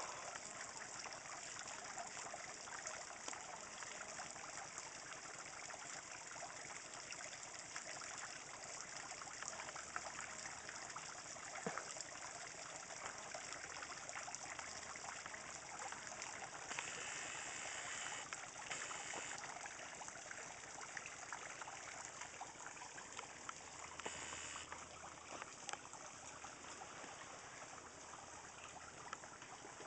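Water trickling steadily into a garden pond.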